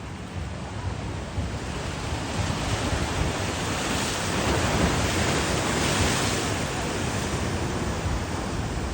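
Ocean surf breaking and washing up a beach, swelling louder about two seconds in as a wave comes through, with some wind rumbling on the microphone.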